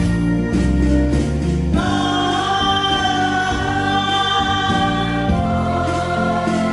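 A Korean ballad-style song with accompaniment. A singing voice comes in about two seconds in and holds long notes for a few seconds before dropping out again.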